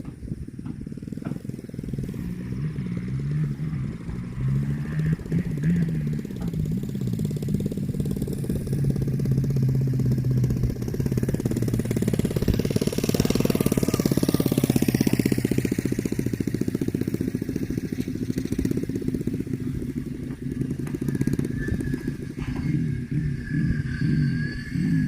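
A motor engine running steadily, growing louder toward the middle and then easing off.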